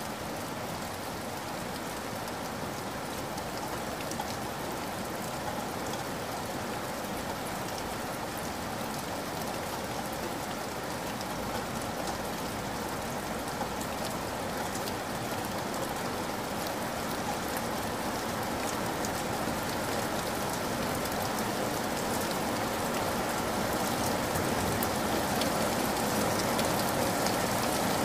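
Steady rain: a dense, even hiss flecked with fine drop ticks, growing slightly louder toward the end.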